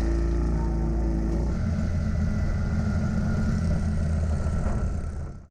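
A machine running with a steady low hum, which shifts in pitch about one and a half seconds in.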